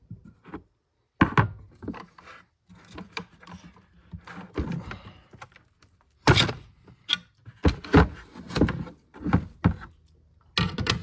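Knocks, clunks and clicks of an M1 Garand rifle's parts being handled and worked apart during disassembly. The knocks are scattered at first and come close together in the second half, about a dozen in all.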